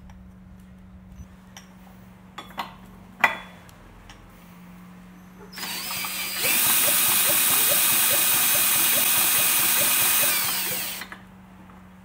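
A cordless drill with a 24 mm socket spins a lawnmower engine over by its flywheel nut. It winds up, runs steadily for about four seconds with a regular ticking of about three a second as the engine turns, then slows down and stops. This is a spark test with the kill-switch wire unplugged; no spark comes, which points to a faulty ignition coil. A few small handling clicks come before it.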